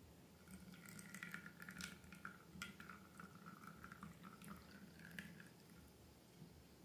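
Faint, wet crackling and squelching of slime being worked by hand, a run of small sticky clicks that fades out near the end, over a low steady hum.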